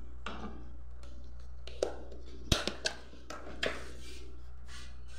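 Wooden spoon stirring melting chocolate in a metal pan set over a pot of hot water, with soft scrapes and a few clicks and knocks against the pan, the sharpest about two and a half seconds in. A steady low hum runs underneath.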